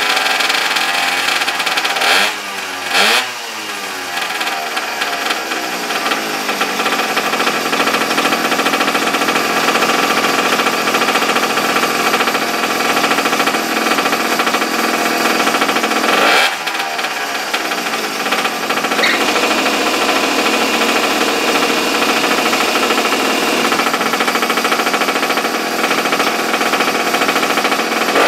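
Small single-cylinder minibike engine running steadily, revved up and back down briefly about two and three seconds in and once more around sixteen seconds.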